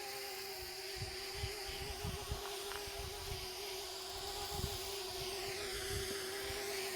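DJI Mavic Mini drone in flight, its propellers giving a steady buzzing hum. A high whine bends up and down in pitch near the end as the motor speeds change. Low bumps come and go underneath.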